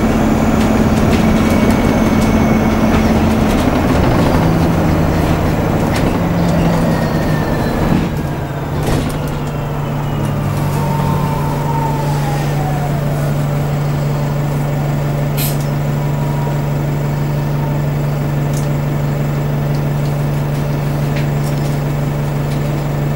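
Alexander Dennis Enviro400 Hybrid bus heard from inside the saloon while moving: a whine from the drive falls in pitch during the first half, a short knock comes about nine seconds in, and after that a steady low hum runs on.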